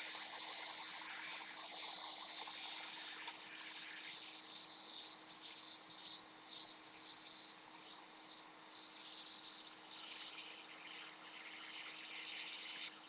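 Irregular high-pitched scratching and rubbing, coming and going every half second or so, from work on the laptop display's plastic bezel, over a steady low hum.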